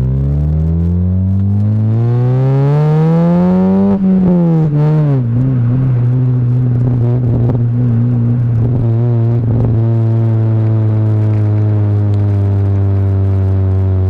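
BMW Mini four-cylinder petrol engine, fitted with a new coil pack and ignition leads, accelerating on the road with its pitch rising for about four seconds. It then drops sharply as the throttle is lifted or a gear is changed, and settles to a steady cruise.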